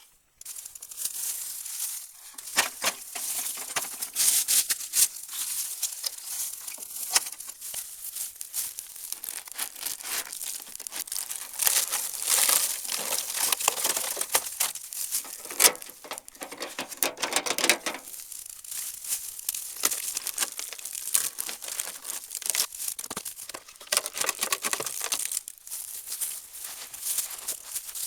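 Dry leaves and brush crunching and rustling, dense with small crackles and snaps, as of someone moving through dry undergrowth.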